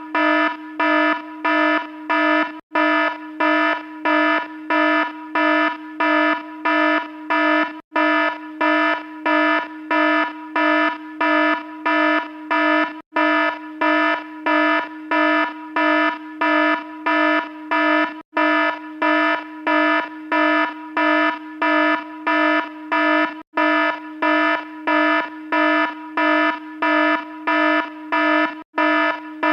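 Electronic alarm beeping in a steady, unchanging rhythm, about two buzzy, low-pitched beeps a second, with a tiny break every five seconds or so where the sound loops.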